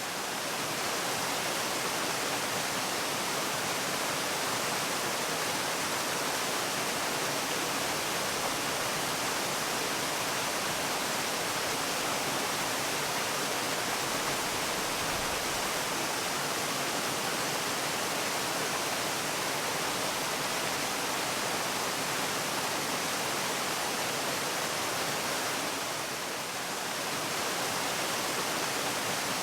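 Waterfall: a steady, even rush of falling water, dipping slightly for a moment near the end.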